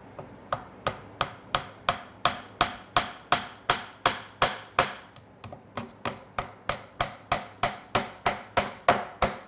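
Small steel hammer tapping glued mahogany wedges into the end of a through-tenon: light, quick taps about three a second, with a short break a little past the middle. The wedges are being eased in gently rather than driven hard, so that they do not pop out the end grain close by.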